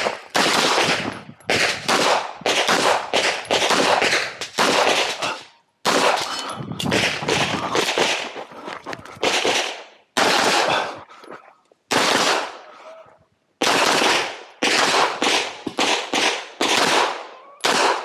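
Semi-automatic pistol fired rapidly at close range, mostly in quick pairs of shots, each a sharp crack with a short echoing tail. The string of fire breaks off for a second or two a few times, then picks up again.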